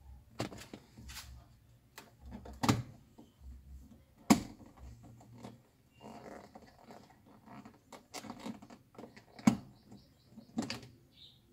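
Sharp plastic clicks and snaps, with rattling and scraping between, from an Audi A6 door's wood-grain trim strip and interior panel being pried with a plastic trim tool and pulled by hand. The two loudest snaps come about four seconds in and near the end.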